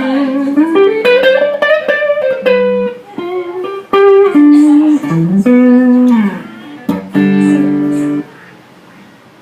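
Fender Squier electric guitar played as single-note melodic lines, the notes sliding and bending in pitch. A chord rings near the end and is cut off sharply.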